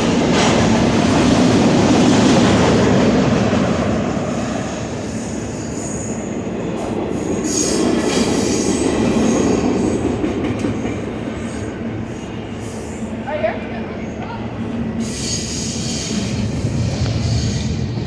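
Freight train rolling past: steel wheels running on the rails in a continuous rumbling clatter that swells and eases, with a brief wheel squeak partway through.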